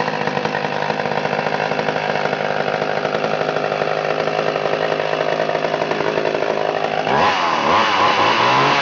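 1976 McCulloch Super Pro 81 chainsaw's 82 cc two-stroke engine running steadily, then revved up and down several times from about seven seconds in.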